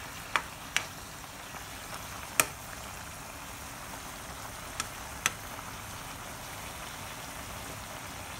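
Thick adobo sauce bubbling and sizzling hard in a pan as it cooks down to a sticky glaze. A few sharp clicks stand out, the loudest about two and a half seconds in.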